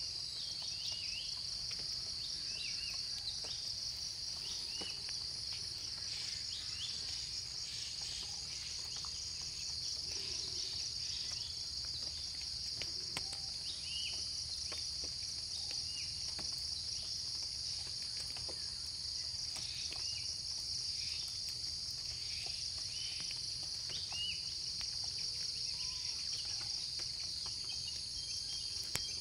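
Insects trilling in a steady, shrill chorus, with short bird chirps scattered through it.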